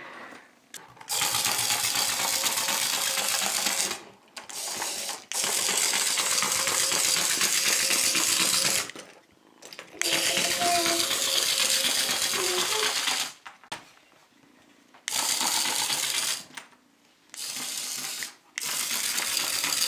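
Small motor and gears of a radio-controlled toy caterpillar buzzing and rattling as it crawls across the floor. It runs in stretches of a few seconds with short pauses between.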